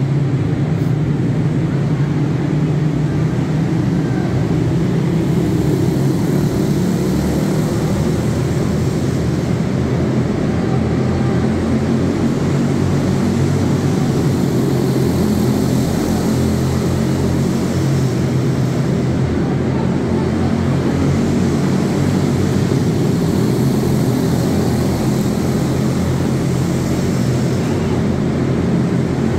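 A pack of quarter midget race cars with single-cylinder Briggs & Stratton Animal engines running laps on an indoor dirt oval. Several small engines blend into one steady, loud buzzing drone inside a large arena hall.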